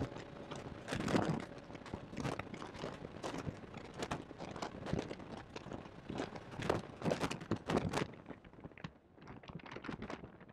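Irregular crackling, crunching knocks from a badly placed in-car microphone, with no steady engine note coming through, easing off a little near the end.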